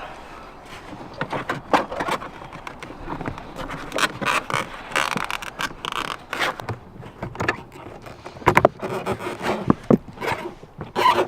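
Plastic car interior trim being pried and handled while cables are pushed through it: irregular scraping, rustling and clicking, busier after a few seconds, with several sharp knocks near the end.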